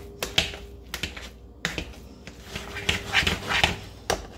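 A utensil knocking and scraping against a pot while mashing and stirring thick mashed potatoes: a series of irregular sharp knocks, coming thicker about three seconds in.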